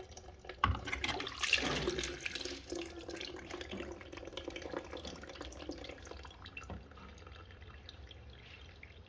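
Water pouring and splashing out of the washing machine as it is drained by hand. The flow is strongest early on and then tapers to a thinner, steady trickle.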